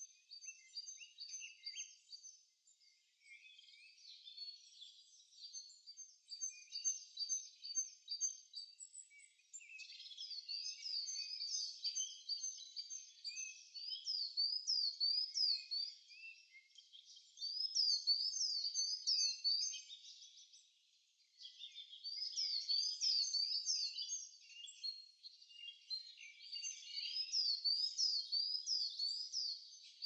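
Small songbirds singing: quick runs of high, repeated notes in phrases a few seconds long with short pauses between, growing louder about a third of the way in.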